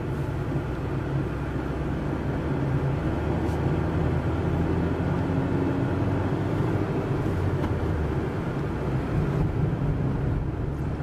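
Car interior noise while driving slowly: a steady low engine hum with tyre and road noise, heard inside the cabin.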